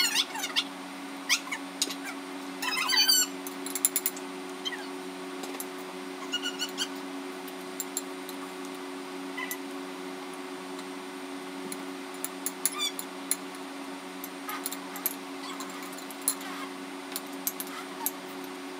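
Metal spoons clinking and scraping against ceramic bowls now and then, over a steady low hum. A brief burst of high, wavering squeaks about three seconds in is the loudest sound.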